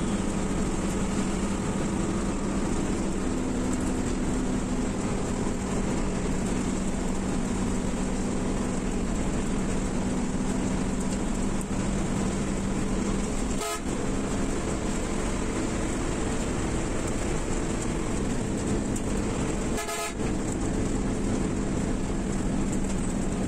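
Steady drone of a highway coach's engine and road noise, heard from inside the bus cabin while it runs at speed, with a low hum that swells in places. The sound dips briefly twice, about 14 and 20 seconds in.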